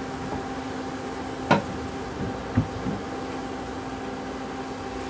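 Steady hum of a Crompton induction cooktop running, its cooling fan and coil humming while an empty pan heats on it. A short knock comes about a second and a half in, and a softer one a second later.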